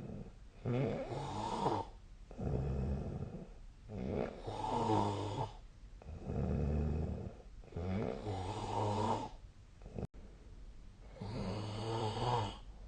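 A sleeping person snoring rhythmically, one snore on each breath about every two seconds, each a low rattling buzz.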